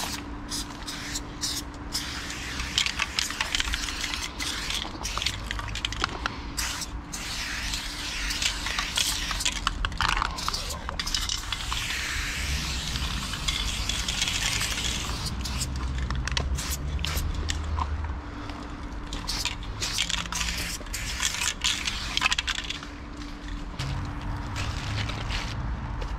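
Aerosol spray paint hissing from a Loop Colors spray can in repeated bursts of varying length, cutting off and restarting many times as the nozzle is pressed and released. The hissing thins out in the last few seconds.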